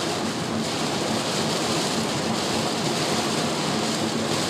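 Heavy rain beating on a car's roof and windscreen, heard from inside the cabin as a loud, steady hiss, with the car's low running hum beneath it.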